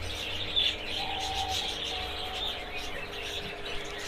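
Small birds chirping and twittering in the background, over a steady low hum.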